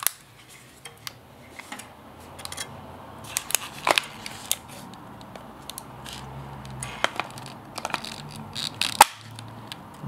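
Plastic clicks and handling noise as a drone battery pack is slid onto a Parrot Bebop 2 and plugged in: a string of small sharp clicks, the sharpest about nine seconds in.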